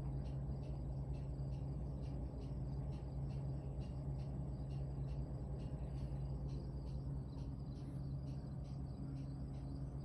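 A cricket chirping steadily, short chirps repeated about twice a second, over a steady low hum.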